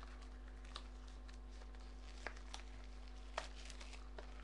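A small cardboard box being handled, giving a few faint scattered ticks and taps over a steady low electrical hum.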